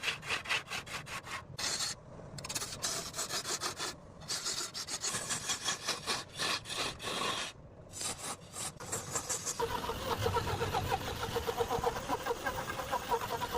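Tools cutting and scraping wood, heard as a string of short, abruptly cut snatches of rasping and sawing, then a steadier cutting sound with a rippling tone from about ten seconds in.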